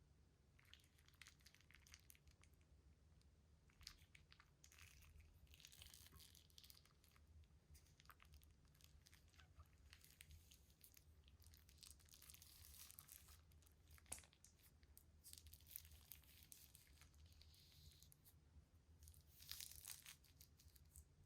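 Faint crinkling and crackling of slime and plastic piping bags being handled and squeezed: scattered small clicks with a few longer crackly stretches, over a steady low hum.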